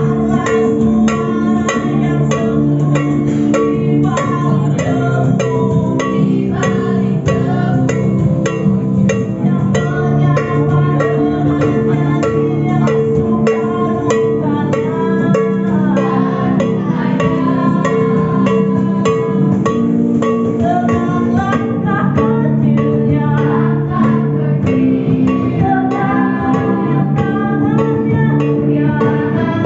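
Music played on plucked string instruments: steady strummed or plucked chords under a melody that moves in places.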